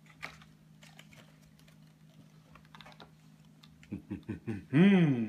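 Paper rustling and soft clicks as the stiff cardboard pages of a pop-up book are turned. Near the end, a man's voice gives a few quick short hoots that run into one loud call, rising and then falling.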